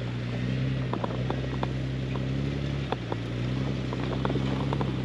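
Jeep Grand Cherokee WJ's engine running at a low, steady speed while crawling a rocky trail, with scattered sharp clicks and knocks of rocks under the tyres.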